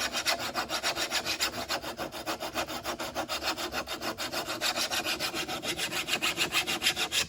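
Worn flat file being pushed in rapid, even strokes along the edge of a steel lawn mower blade, sharpening it. A steady rhythm of rasping strokes that ends sharply.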